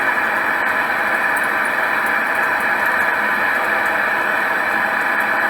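Homemade forge burner running: a steady rushing noise that does not change.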